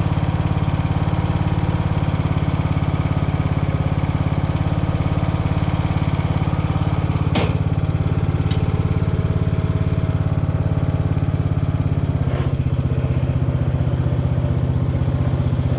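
Craftsman riding lawn mower's small gasoline engine running steadily with an even firing pulse, with a sharp click about seven seconds in and a fainter knock a few seconds later.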